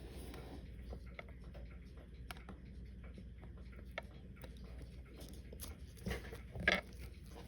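Faint, irregular small clicks and taps of watchmaker's tools on a mechanical watch's parts during disassembly, with two louder clatters near the end.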